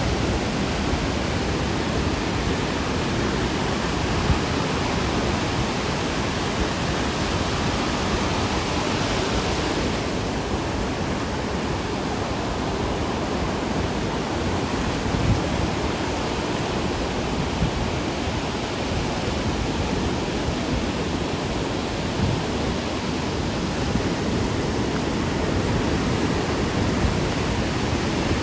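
Ocean surf: a steady, unbroken rush of water noise with no clear rise and fall of single waves. The hiss turns slightly duller about ten seconds in.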